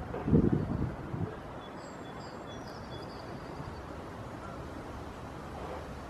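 Wind buffeting the microphone in low gusts for about the first second, then a steady outdoor background with faint bird chirps.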